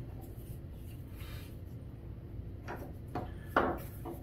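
Parts of an indoor grill's glass lid and its plastic handle being handled: a faint rustle, then a few light knocks and clicks, the loudest about three and a half seconds in, over a steady low hum.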